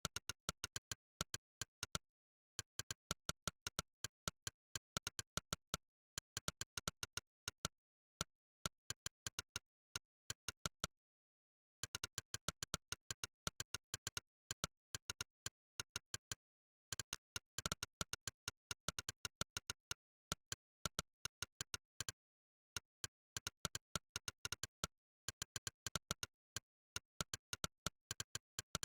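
Monkeytype's synthetic 'click' keypress sound effect firing once per keystroke in fast bursts of typing, several clicks a second, broken by short pauses of about a second between words or phrases.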